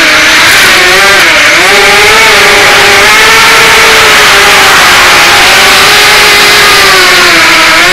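Quadcopter's electric motors and propellers whining loudly, heard from the camera on board; the pitch wavers with the throttle, dipping about a second and a half in and again near the end before climbing back up.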